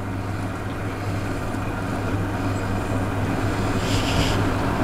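Steady electric fan hum from a kitchen appliance, with a brief hiss about four seconds in.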